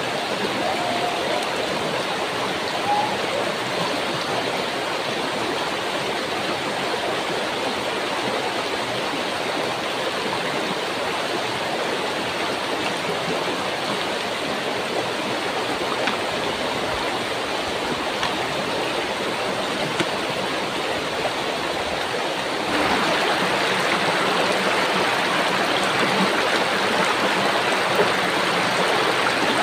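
Shallow river rippling steadily over a bed of stones and pebbles. It grows louder and brighter about three-quarters of the way through.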